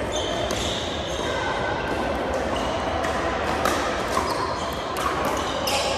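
Pickleball paddle-and-ball hits echoing through a gym hall: sharp pops at an uneven pace, with short high squeaks and a steady background hubbub.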